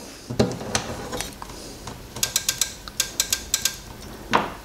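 Metal test-probe tip scraping and clicking against a lead clipped to the circuit under test. A few scattered clicks come first, then a quick run of about a dozen small clicks in the middle, and a short duller knock near the end.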